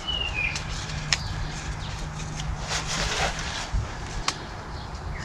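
A paper seed packet being handled and opened: light rustling and a few small clicks, with a longer crinkly rustle about three seconds in.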